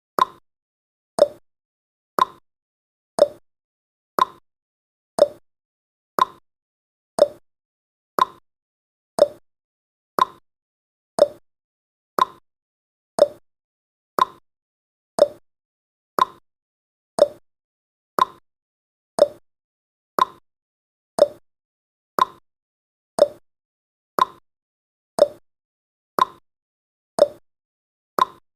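Countdown timer's clock-tick sound effect: a sharp tick once a second, alternating a higher and a lower tick like a clock's tick-tock.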